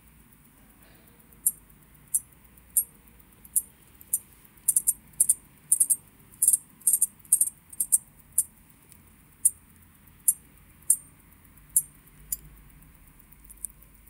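Crisp, high clicks from the Ulysse Nardin UN-118 watch movement as its crown is turned by hand. There are about two dozen separate clicks at an uneven pace, coming quickest in the middle.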